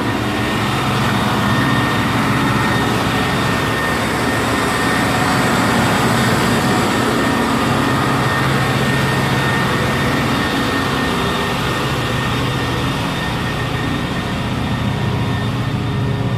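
International MaxxForce 7 V8 diesel running steadily while parked through a forced DPF regeneration to burn off soot, with a thin steady whine over the engine note.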